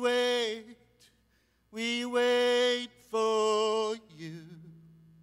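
A man singing three long held notes, each about a second long, the second and third at the same pitch, in a chant-like way.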